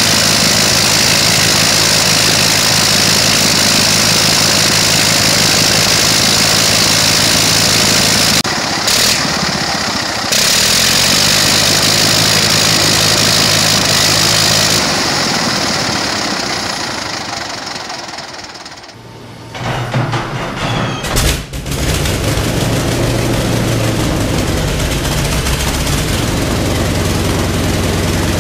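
A Clerget rotary aircraft engine runs with its propeller turning, then dies away and stops a little past halfway. A Wright R-1820 Cyclone 9 nine-cylinder radial engine then coughs a few times as it starts and settles into a steady run.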